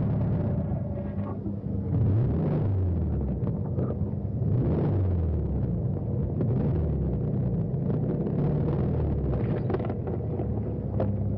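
Car engines running with a low rumble, their pitch rising and falling as they are revved a few seconds in.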